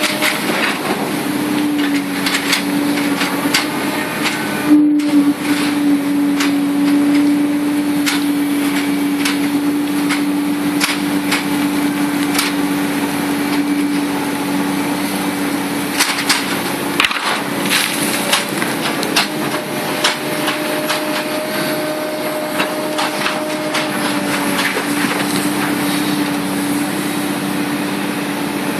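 Komatsu PC300-8 hydraulic excavator working: its engine and hydraulics run with a steady hum, while irregular knocks and clatter sound from the machine's work throughout.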